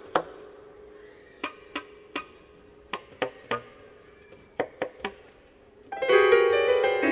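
Improvised concert music: a scatter of sharp percussive clicks and taps, some ringing like plucked strings, over a faint low sustained tone, then a loud, dense piano chord about six seconds in.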